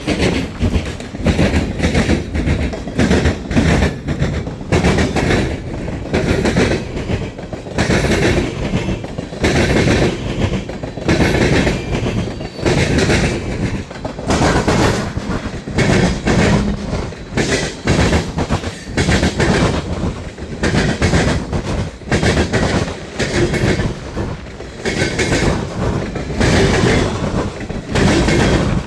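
Norfolk Southern freight train's cars rolling past, wheels clattering over the rail joints in a continuous, loud clickety-clack with a steady rumble underneath.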